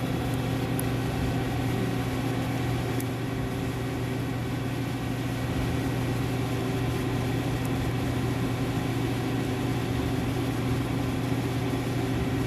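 CNC machine running with a steady, even hum, as the machining cycle goes on to remove the burr on the back of the part.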